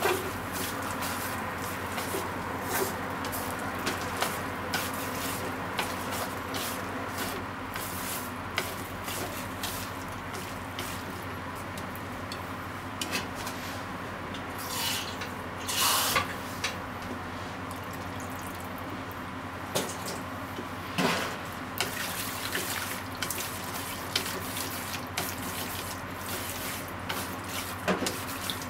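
Bean sprouts and shimeji mushrooms sizzling in a frying pan as they are stir-fried. Chopsticks click and scrape against the pan, and the sizzle swells louder a few times as the food is turned.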